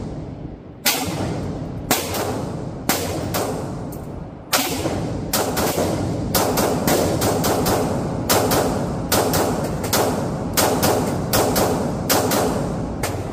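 Semi-automatic pistol fired in a steady string at an indoor range, each shot followed by a short echo off the concrete lane. About two dozen shots: roughly one a second at first, then quickening to several a second from about four and a half seconds in. The firing stops just before the end, with the slide locked back on an empty magazine.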